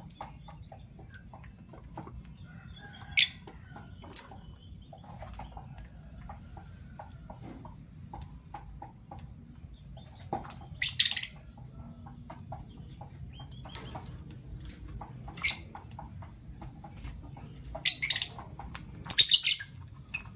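Caged lovebirds giving short, shrill chirps, about seven of them, loudest near the end, with faint ticks of feet and wings between them over a steady low hum.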